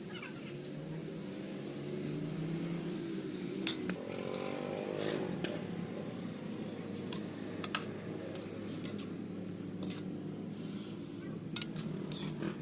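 A cooking utensil clinking against a pot in scattered sharp clicks, over a steady low background hum.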